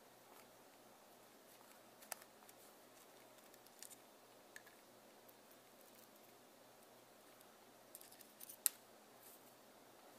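Near silence with a few faint small clicks and taps from a precision Phillips screwdriver and the plastic barrel of a Canon EF 50mm f/1.8 II lens being handled as a screw is taken out: one about two seconds in, a couple near four seconds, and a small cluster near the end.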